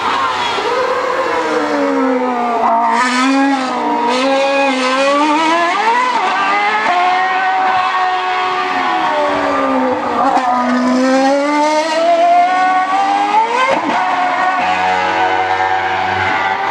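Formula 1 car's Renault 2.4-litre V8 revving up and down through the gears. Its high-pitched note falls twice as the car brakes and shifts down, then climbs in short steps with each upshift before settling higher near the end.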